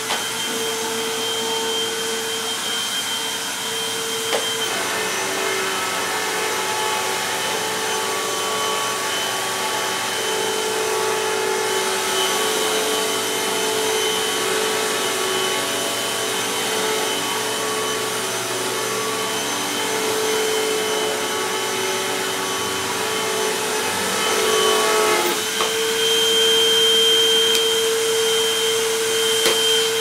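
Hoover WindTunnel Max upright vacuum cleaner running continuously, a steady motor whine over rushing air. About 25 seconds in its tone shifts and it gets a little louder.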